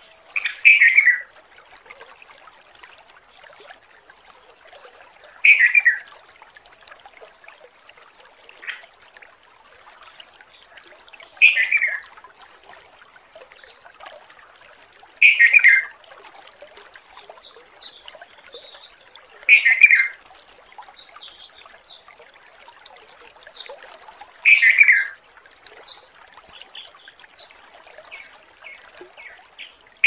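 Red-vented bulbul calling: a short, bright phrase falling in pitch, repeated six times at intervals of about four to six seconds, with a few faint short notes in between. It is a male's call to a female.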